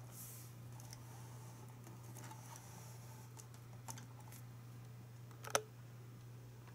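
Faint steady low hum with scattered small clicks, one sharper click about five and a half seconds in.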